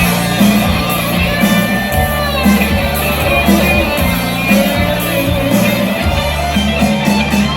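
Live band music with no singing: guitar over a steady bass line and a regular drum beat.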